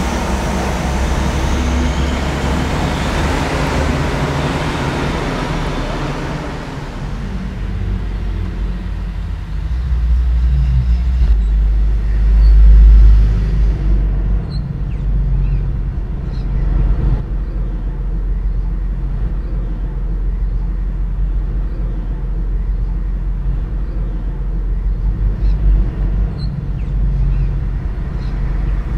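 Street traffic: a heavy semi-trailer truck passes close in the first few seconds, its tyre and engine noise fading away. Afterwards a steady low engine rumble from slow-moving traffic remains, swelling loudest about twelve seconds in.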